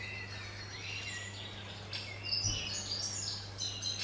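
Small songbirds chirping and singing, with short repeated notes and trills, over a steady low hum. A brief soft thump about two and a half seconds in.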